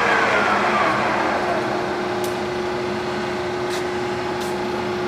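Lansing Model G engine lathe running under power: a gear whine falls in pitch over the first second or so as the spindle slows, then the machine settles into a steady hum with a few light clicks.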